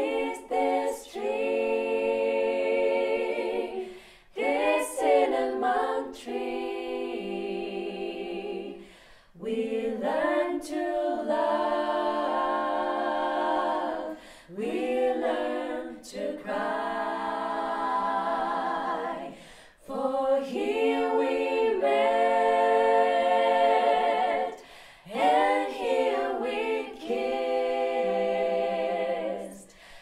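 Five women's voices singing a cappella in close harmony, holding chords in phrases of a few seconds with brief pauses for breath between them.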